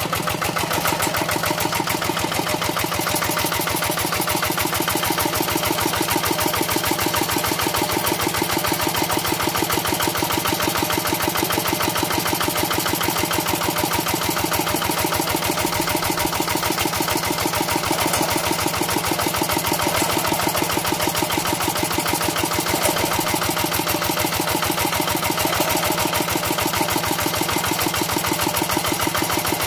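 Quick Impala two-wheel hand tractor's single-cylinder diesel engine running steadily with an even, rapid chug, a little louder from about a second in.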